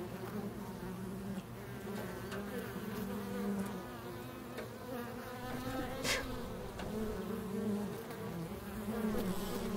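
Black flies buzzing around the microphone, several wavering hums overlapping, with a single short click about six seconds in.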